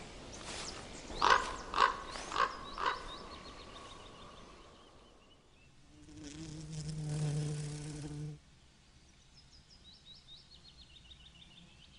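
Bumblebee buzzing, a low steady hum that swells from about six seconds in and cuts off suddenly past the eighth second. Around it, birds call in quick falling runs of high chirps, and near the start come a few sharp strikes.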